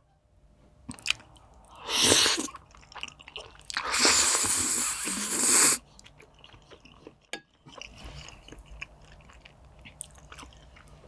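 Close-miked eating sounds. Two loud stretches of noisy biting or crunching come about two seconds in and from about four to six seconds, then quieter chewing with scattered mouth clicks.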